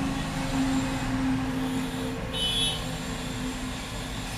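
Steady background noise with a low hum, and a brief high-pitched chirp about two and a half seconds in.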